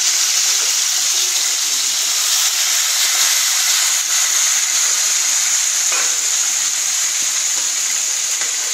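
Masala-coated chicken pieces frying in hot oil in a pan: a steady, loud sizzle.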